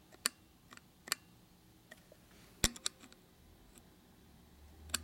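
A few light, sharp metallic clicks, scattered and irregular, two close together midway: a small bent metal gauge ticking against the valve heads and chamber of a Harley shovelhead cylinder head while the gap between the valves is checked.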